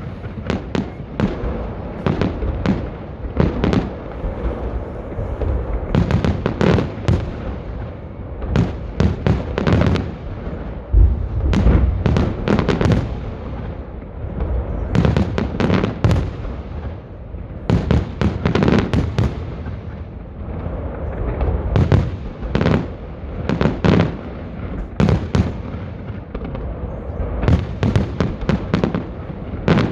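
Festive salute fireworks: shells bursting in quick clusters of sharp bangs every second or two, over a continuous rolling rumble of echoes.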